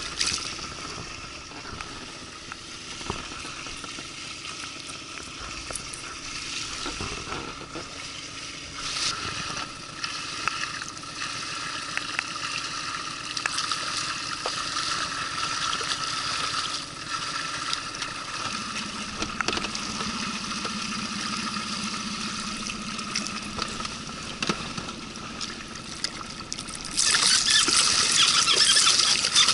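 River water trickling and lapping against the side of a small boat in the rain, with many small ticks. It opens with a splash as a released fish goes back into the water, and near the end a louder rush of splashing water.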